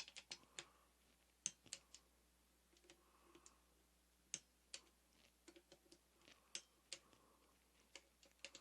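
Irregular light clicks and taps of small metal engine parts and tools being handled during reassembly, with a stronger click about one and a half seconds in and another a little past four seconds.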